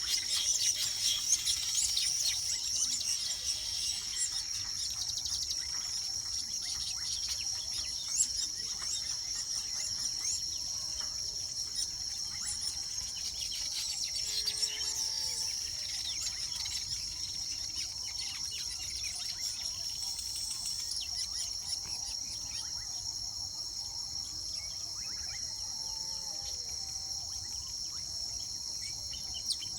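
Weaver birds chattering and chirping in quick busy bursts, thickest in the first half, over a steady high-pitched insect trill.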